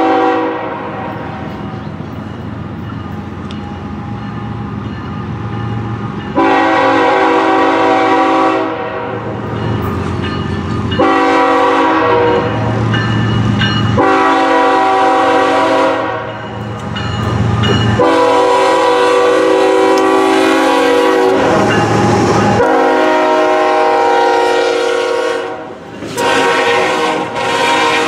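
A train's multi-tone air horn sounding a series of about six long blasts, each held for a few seconds and starting and stopping abruptly, with a low rumble of the running train between blasts.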